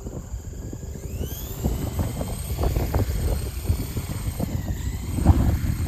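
Skylark EH-1 electric RC helicopter spooling up for take-off: its motor whine rises about a second in as the rotor comes up to speed and the model lifts off. The whine dips briefly and recovers near the end, over gusty low buffeting.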